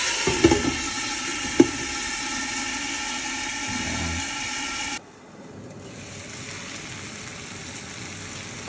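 Pork ribs sizzling in oil with onions and garlic in a wok. A metal lid clinks onto the pan about half a second in and again at about a second and a half. The sizzle drops suddenly to a softer level about five seconds in.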